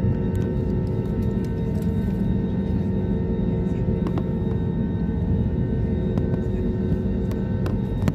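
Airliner's jet engines at takeoff thrust, heard from inside the cabin: a steady rumble with steady humming tones on top.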